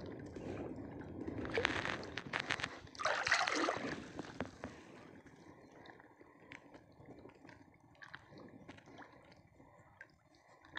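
Shallow seawater sloshing and splashing close to the microphone, with two louder splashy bursts in the first half, then quieter lapping with small scattered clicks.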